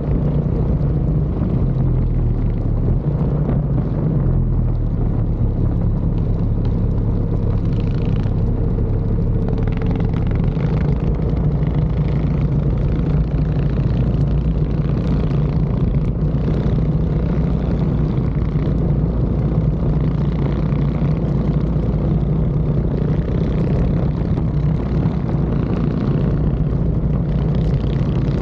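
Mini bike engine running steadily under way, its note holding nearly constant with a slight drop in pitch about four seconds in.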